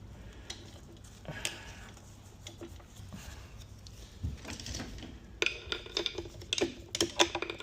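Metal transmission parts clinking and knocking against each other as they are handled, with a few faint clinks at first, then a quicker run of sharp, ringing metallic clicks over the last couple of seconds.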